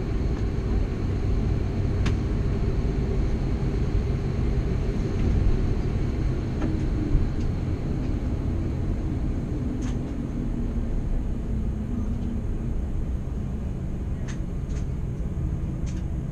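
Low, steady rumble in an Airbus A330-200 cabin, with a hum that slowly falls in pitch from about the middle onward as the engines spool down after shutdown. A few faint clicks come near the end.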